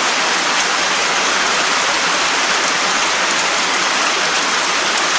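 Steady rain falling, an even hiss that holds level without a break.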